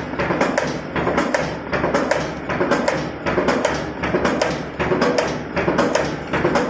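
Spring steel wire forming machine running in repeated cycles, a cluster of sharp clicks and metallic taps about once a second over a steady low hum.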